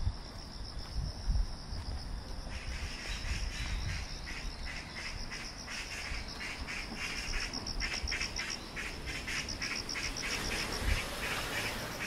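Insects singing in the park trees and grass: a steady high-pitched trill, joined a couple of seconds in by a pulsing call that repeats about three times a second.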